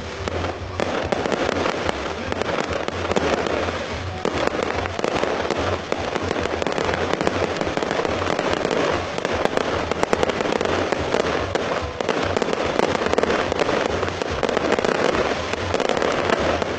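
Fireworks display going off in a dense, continuous barrage of bangs and crackles, with no break.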